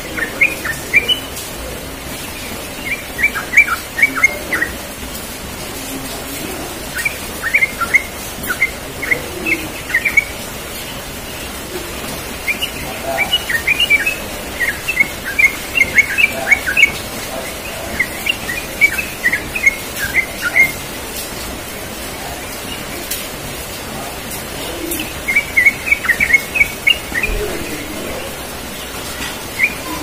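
Yellow-vented bulbul (trucukan) singing: about six bursts of quick, bubbly chirping phrases, each a second or two long, with pauses of a few seconds between them.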